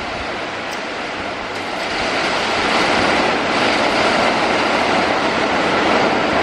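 Heavy rain falling, a steady hiss that grows louder about two seconds in.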